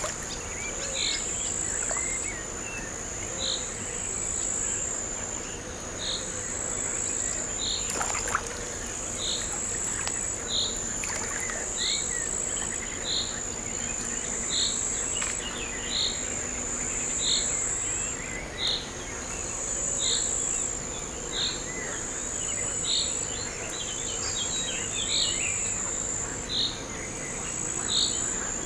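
Crickets trilling in a steady high-pitched chorus that breaks off briefly every second or so. A second, lower short chirp repeats evenly about every second and a half.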